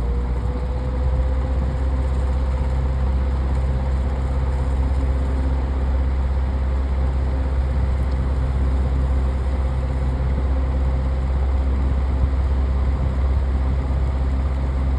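Electric desk fan switched to high speed: the motor's hum rises slightly in pitch during the first second or so, then it runs steadily with a strong low hum and the rush of its blades moving air.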